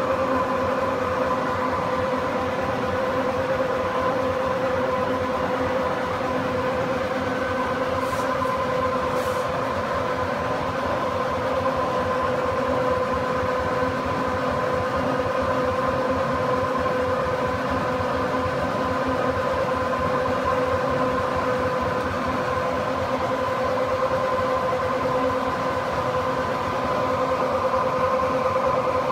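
Fellows 3 x 48 rack shaper gear-cutting machine running: a steady mechanical hum with a whine, over a fast, even low chatter from its drive.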